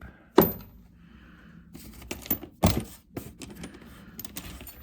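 Steel sockets clinking and clattering against each other as they are rummaged through and set down, with a few sharper knocks about half a second in and near three seconds.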